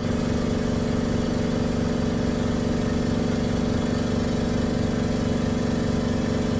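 Spray mist gun of a hydrafacial machine running, its pump giving a loud, steady mechanical hum.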